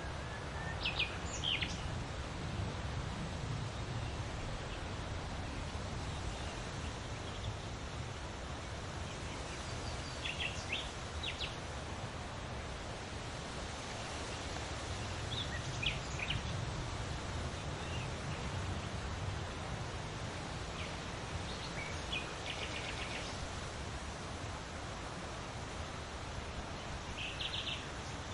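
Wind rustling large leaves, a steady rushing with a low wind rumble underneath. Short bird chirps come through now and then, about five times.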